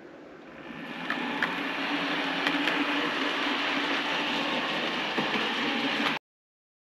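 OO gauge model train running along the track: a steady running noise with a low hum and a few sharp clicks. It fades in over the first second and cuts off abruptly near the end.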